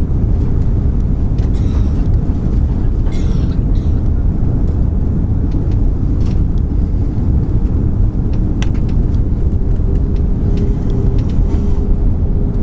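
Cabin noise of an Airbus A340 landing: a loud, steady low rumble of engines and rushing air, with a few light knocks, and a faint steady hum joining near the end.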